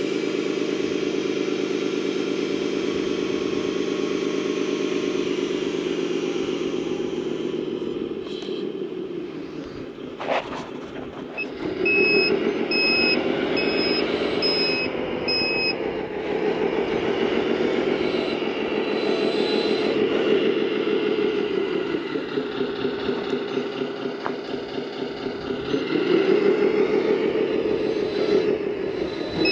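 Kabolite 970 RC hydraulic excavator running with a steady mechanical drone whose pitch swells and falls as it works. About a third of the way in a reversing alarm beeps regularly for a few seconds, just after a single sharp knock.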